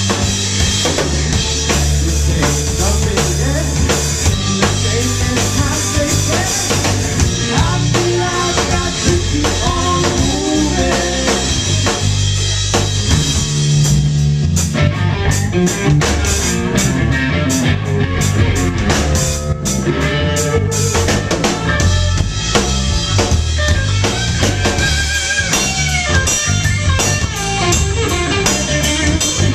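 Live blues-rock band playing an instrumental section without vocals: electric guitar, bass guitar and a drum kit with steady cymbal and snare hits.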